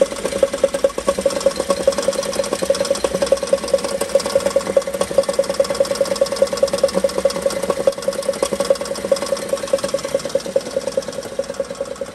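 Holden Commodore VF SV6 running, heard from under the car at the automatic transmission's bell housing: a fast, even rattling knock over a steady hum. This is the noise that the owner takes to be coming from the automatic transmission.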